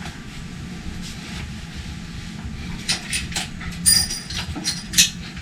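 Work on a motorcycle wheel: a few sharp metallic knocks and clanks, the loudest about four and five seconds in, one with a brief ring, over a steady low hum.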